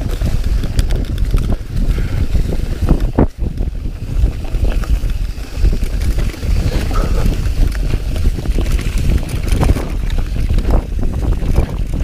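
Mountain bike descending fast over a rough dirt trail: wind buffeting the camera microphone, with tyres on dirt and a constant chatter of rattles and knocks from the bike over roots and rocks.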